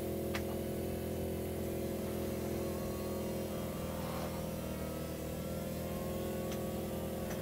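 BMW Z4 roadster's power soft top closing, its drive motor running with a steady hum as the top unfolds over the cabin. A few light clicks come from the mechanism along the way.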